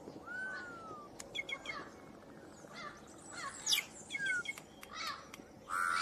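Several songbirds singing and chirping: a mix of short chirps, whistled notes and a few falling glides over a steady outdoor hiss. A steady held tone comes in near the end.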